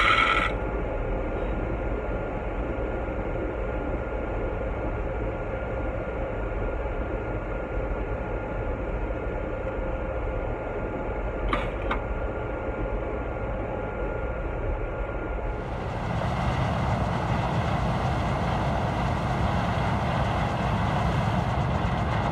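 Farm vehicle engine running steadily, with a brief beep right at the start; about three-quarters of the way through it grows louder and brighter and stays up.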